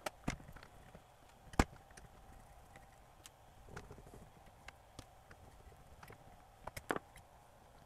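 Scattered small clicks and taps of a screwdriver and fingers handling the open metal transport mechanism of a Panasonic RS-270US cassette deck, with one sharper click about one and a half seconds in and a quick cluster of taps near the end.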